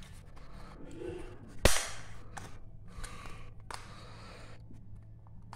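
One loud, sharp snap about a second and a half in, as a knife blade cuts through a wire lead on a compact fluorescent bulb's ballast circuit board. Fainter clicks and scrapes of the blade on the board come before and after it.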